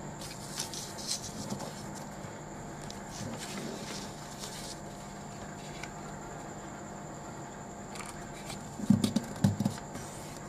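A sheet of A4 paper being folded and creased by hand on a hard tabletop: light rustling and rubbing, then a few sharper taps of fingers pressing the fold down near the end, over a faint steady hum.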